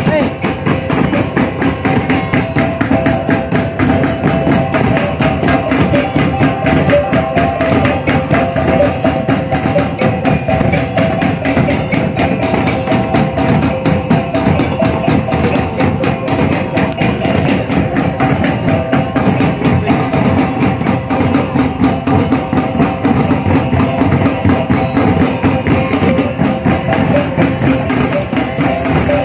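Live Minangkabau talempong ensemble: rows of small bronze gong-kettles ringing a fast, repeating interlocked melody over a steady beat on gandang barrel drums.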